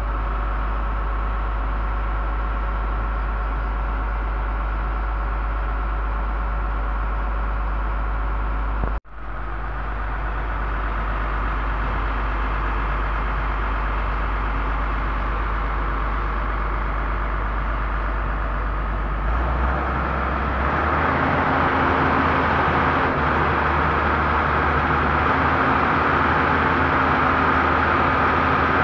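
Pindad excavator's diesel engine running steadily at idle, with a brief break about nine seconds in. From about twenty seconds in it runs louder, at a higher engine speed.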